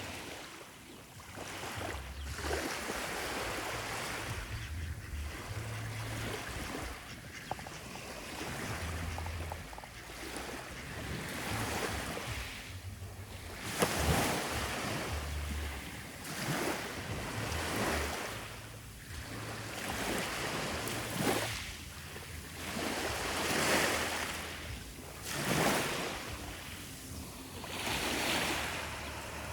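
Sea surf: waves washing in one after another, each a swelling and fading rush, with wind buffeting the microphone.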